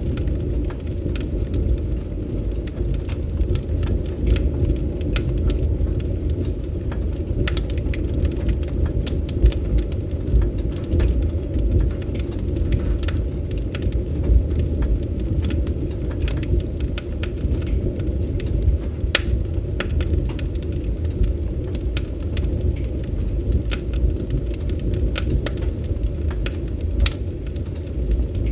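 Fire crackling in a fireplace: a steady low rumble of flames with frequent irregular sharp pops and snaps.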